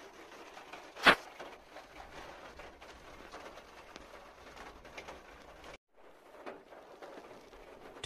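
Quiet background noise with a single sharp knock about a second in; the sound cuts out briefly near six seconds.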